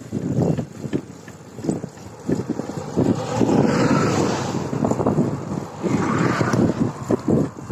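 Wind buffeting a phone's microphone in irregular low gusts, swelling louder and fuller about three seconds in and again about six seconds in.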